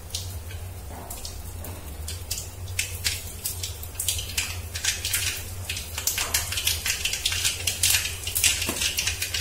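Mustard seeds spluttering in hot oil in a steel kadai: rapid, irregular crackling pops that grow denser from about halfway through. The popping is the sign that the oil is hot enough for the tempering.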